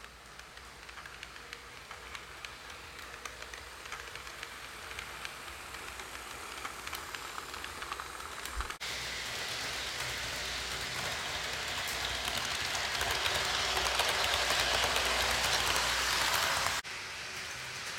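HO scale model passenger train running along the track: a rushing whirr from its wheels and motor with many small clicks, getting louder as it comes nearer. The sound breaks off and changes abruptly about nine seconds in and again near the end.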